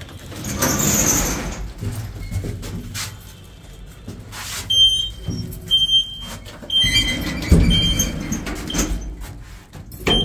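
Collapsible steel grille gate of a lift sliding and clattering as it is pulled open and shut. Several short, high beeps sound from the lift through the second half, among sharp metal knocks.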